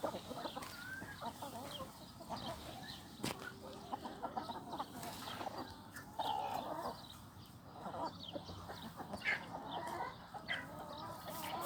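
A flock of free-range village chickens clucking, many short calls overlapping, with one louder call about six seconds in.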